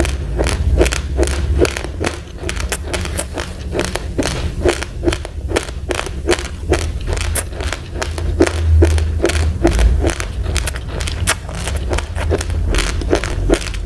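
A person chewing uncooked rice grains close to the microphone: a steady run of sharp crunches, about three a second, over a deep low thudding of the jaw.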